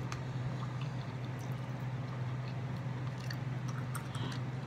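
Two people eating spicy noodles fast: faint chewing, with scattered small clicks of forks in plastic bowls. A steady low hum runs underneath.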